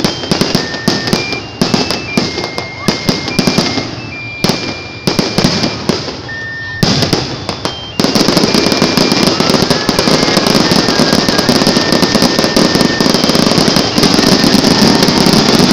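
Aerial fireworks shells bursting, with many sharp bangs in quick succession. About eight seconds in this turns suddenly into a dense, continuous crackling as a barrage goes off.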